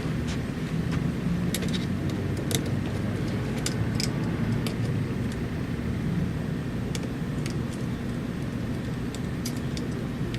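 Steady low background hum with several light clicks and taps scattered through it, as small screws and plastic laptop parts are handled.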